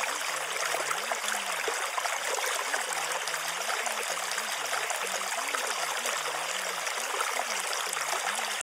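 Steady rainfall, a dense even patter, with a faint low tone wavering up and down underneath. It cuts off abruptly just before the end.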